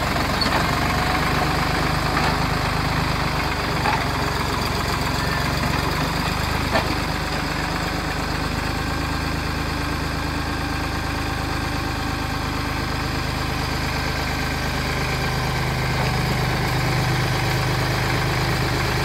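SAME Fox crawler tractor's diesel engine running steadily at low revs as the small tracked tractor creeps along, with a few faint clicks in the first several seconds.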